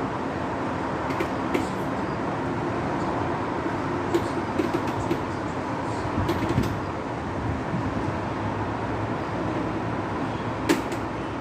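Steady city hum of traffic rising from the streets below, with a few faint clicks and one sharper click near the end.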